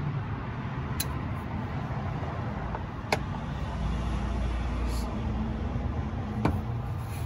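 Sharp clicks from the fog light's plastic wiring connector being handled and unplugged, three in all, over a steady low background rumble.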